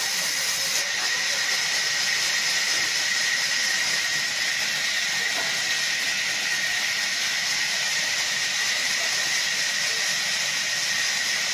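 Sawmill band saw blade cutting lengthwise through a log as it is fed along the table: a steady, high-pitched hiss with a constant whine.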